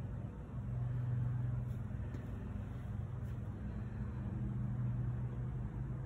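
A steady low machine hum, like a motor or engine running continuously.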